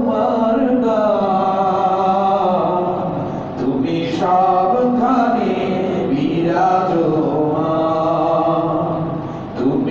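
Male voice chanting in a slow, drawn-out melody, with long held notes and a short break for breath about three and a half seconds in and again just before the end.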